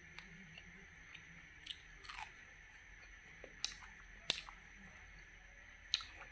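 Close-miked chewing of cooked wood larvae, with about five sharp crunches spread through the bites.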